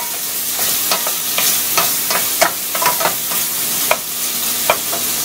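Chopped bacon sizzling in its rendered fat in a stainless steel pan, a wooden spoon stirring it and tapping against the pan about twice a second.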